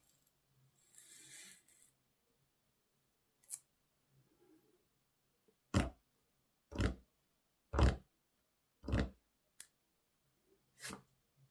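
Product packaging being cut and opened: a short rustle, then a run of sharp snips or crackles about a second apart, followed by a couple of lighter clicks.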